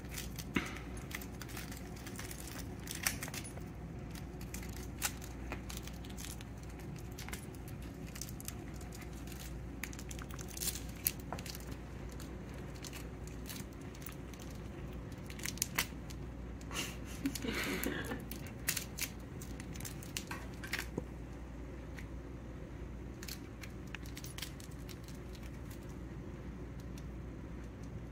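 A cat batting at and tussling with a feather wand toy on carpet: scattered light clicks and rustles. A brief vocal sound comes about two-thirds of the way through.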